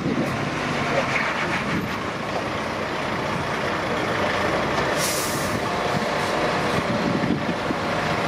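Diesel engines of a DAF XF truck and a Liebherr wheeled excavator running steadily side by side, with a short air-brake hiss about five seconds in.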